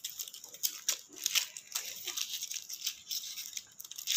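A person chewing noodles close to the microphone: a run of soft, irregular mouth clicks and smacks.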